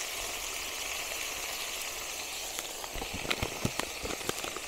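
Irregular crinkling and crackling of a thin plastic seasoning sachet being handled and folded shut, starting about halfway in, over a steady high background hiss.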